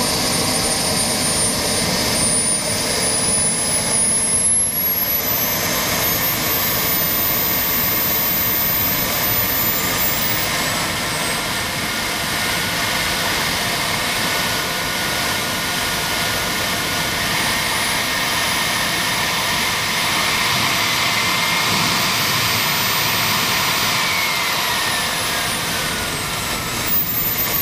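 King Tech K-80 micro turbojet engine running loud: a jet rush with a thin, high whine on top. The whine climbs in pitch over the first ten seconds as the turbine spools up, climbs again about two-thirds of the way in, holds, and falls near the end as the throttle comes back.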